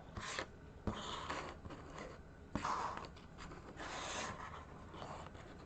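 Small plastic Heroclix figures being slid across a tabletop: soft scraping and rubbing, with a couple of light clicks.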